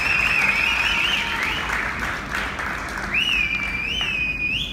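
Audience applauding at the end of a folk dance, the clapping fading after a couple of seconds, with shrill whistling from the crowd: one wavering whistle at the start, then whistles that rise and fall from about three seconds in.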